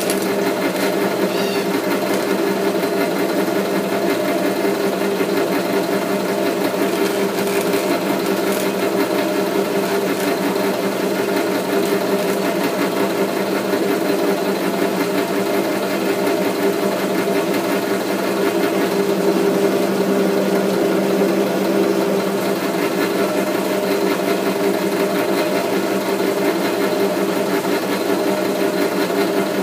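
Metal lathe running steadily under power, its change-gear train driving the leadscrew for single-point thread cutting. It makes an even mechanical hum with several fixed tones.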